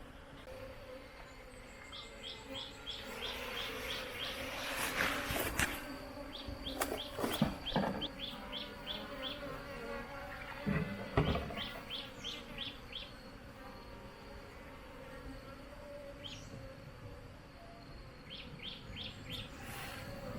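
Honey bees buzzing, with a bird's runs of quick high chirps repeating several times. Sharp knocks and rustling from handling come in the middle.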